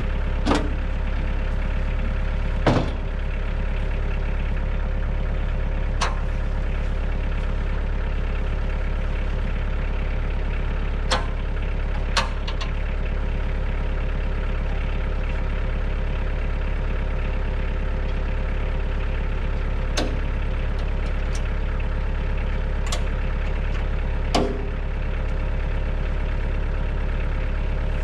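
Kioti compact tractor's diesel engine idling steadily behind a Woodland Mills WC68 PTO wood chipper. Several sharp metal clanks come through the idle as the chipper's infeed hopper and discharge chute are set up.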